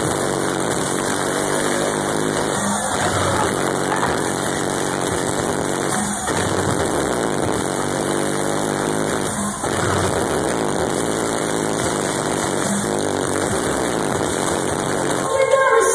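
Loud live electronic dance music through a concert PA, built on a distorted, growling synth bass that sounds close to an engine. The phrase repeats about every three and a half seconds.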